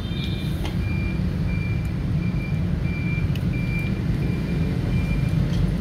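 A vehicle's reversing alarm beeps about twice a second, one high beep at a time, over a steady low vehicle rumble. The beeping stops shortly before the end.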